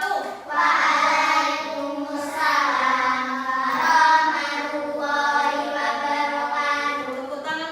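A group of children singing together in unison, in long held notes that glide from one pitch to the next.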